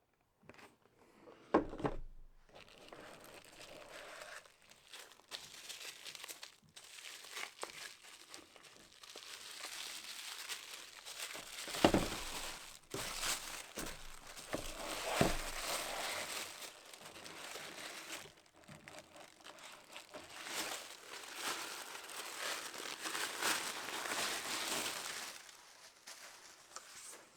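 Packaging being handled and unwrapped: plastic and paper crinkling and rustling, with a few knocks, the loudest about two seconds in and again around twelve and fifteen seconds.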